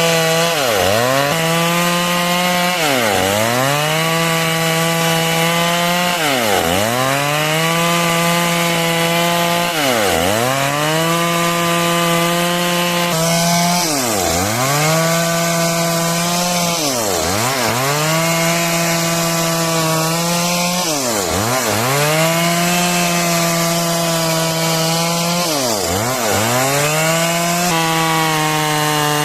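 Stihl MS 382 two-stroke chainsaw running at high revs while cutting wood, the engine pitch dropping sharply and climbing straight back again every two to three seconds.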